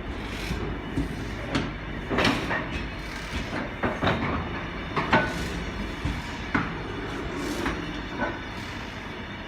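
Class 66 diesel locomotive's two-stroke V12 engine idling at a standstill, a steady low rumble. Irregular sharp clanks and knocks sound over it, the loudest about two, four and five seconds in.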